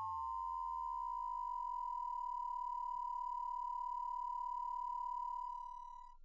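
Ring-modulated sine tone from a Eurorack synth: a Ward oscillator sine multiplied by the Angle Grinder's sine in the Boundary's four-quadrant VCA. In the first half-second the sidebands draw together into one steady, high tone, which fades out near the end.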